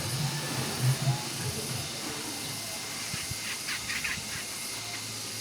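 A songbird chirping in a quick cluster of short calls a little past the middle, over a steady hiss. A low hum fades out about a second and a half in.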